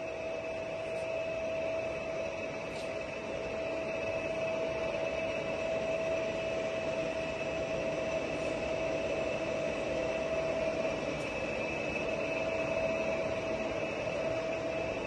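Giana heavy-duty lathe running, its carriage travelling along the bed under power longitudinal feed: a steady mechanical hum with a constant whine over it.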